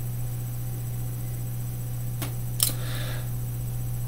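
A steady low hum of room and recording noise, broken by two soft clicks about two seconds in and a faint breath just after them.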